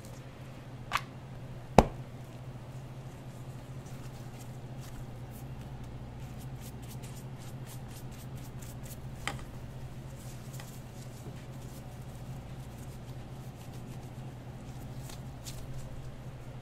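Steady low hum of kitchen equipment under soft handling sounds as a flour tortilla is folded and rolled on a plastic cutting board, with a few sharp knocks, the loudest about two seconds in.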